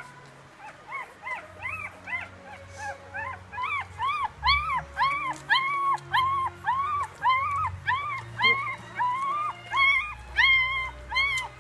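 One-week-old Labrador puppy crying in a steady series of short squeals, each rising then falling in pitch, about two a second, growing louder about four seconds in.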